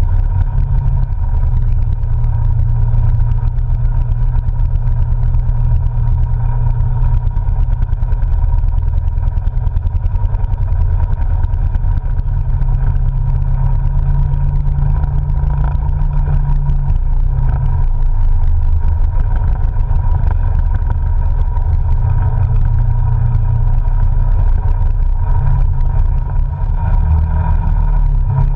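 Polaris RZR side-by-side under way, its engine giving a steady low drone that shifts slightly in pitch as the throttle changes. It is heard from the open cab.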